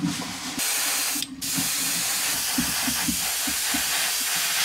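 Gravity-feed airbrush spraying black paint onto small beads in a steady hiss of air, broken off once for a moment a little over a second in and cut off near the end.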